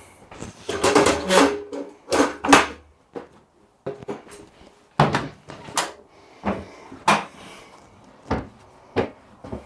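Hard parts of a tonneau cover being handled and fitted on a pickup bed: a busy run of knocks and clatters for the first few seconds, then single clunks about once a second, some with a short ring.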